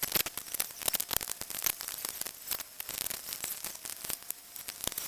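Dense, irregular crackling static: many sharp clicks and pops a second over a steady hiss.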